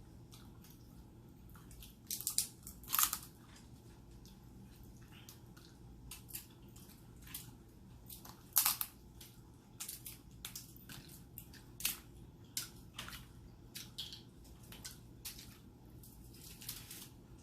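Eating sounds close to the microphone: scattered brief smacks, clicks and crunches of chewing, the strongest about three seconds in and again about eight and a half seconds in.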